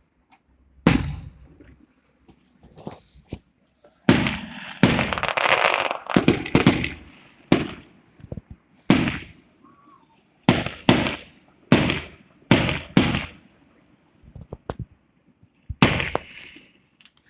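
Firecrackers going off in irregular sharp bangs, about a dozen, each with a short echoing tail, with a rapid run of bangs between about four and seven seconds in.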